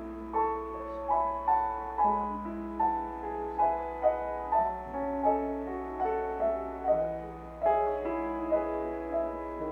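Slow, gentle solo piano music, with chords and melody notes struck about twice a second and left to ring.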